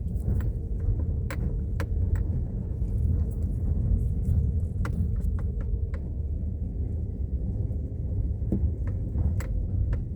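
Steady low vehicle rumble with scattered light clicks and rattles.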